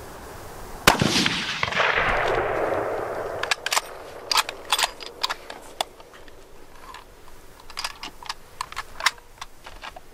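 A single hunting-rifle shot about a second in, its echo rolling away over about two and a half seconds, followed by scattered short sharp clicks.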